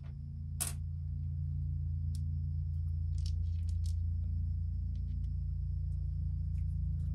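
A steady low hum that grows a little louder about half a second in, with a few faint light clicks of small screws and a plastic transmission case being handled.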